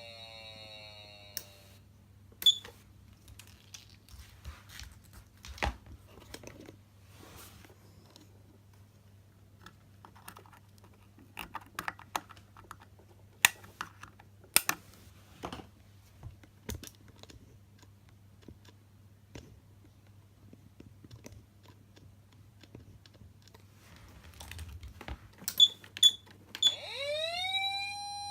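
A Patlite SAP500BZ electronic siren amplifier's tone cuts off about a second and a half in, followed by a long stretch of scattered sharp clicks from its switches being worked, over a steady electrical hum. Near the end the siren starts again, sweeping up quickly to a steady high tone.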